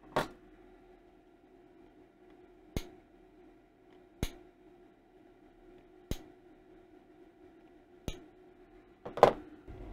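Small side cutters snipping the excess leads of freshly soldered components on a circuit board: about six sharp clicks, one every second or two.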